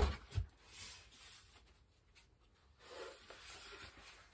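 A thump and a lighter knock as a foam packing piece is set aside, then faint rustling and rubbing of packaging being handled.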